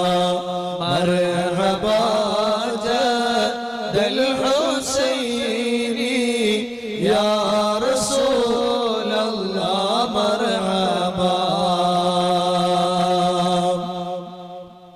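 Devotional chanting: a voice sings long, wavering, drawn-out lines over a steady low drone, dipping away briefly near the end.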